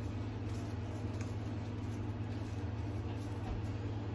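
A steady low hum, with a few faint light clicks and scrapes from a spoon spreading frosting on cupcakes in paper liners.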